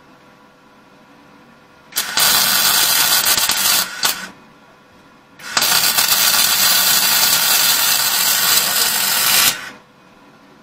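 Semi-automatic (MIG/MAG) welding arc feeding 1 mm copper-coated SV08G2S wire, burning in two runs: about two seconds, then about four seconds, with a short blip between.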